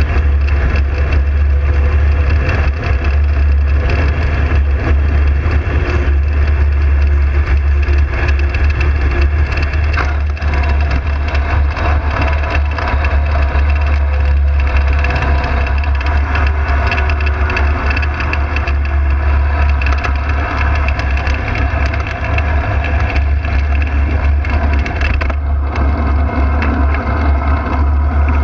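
Steady in-flight noise aboard a hang glider: heavy wind rumble on the microphone with a steady engine drone beneath it.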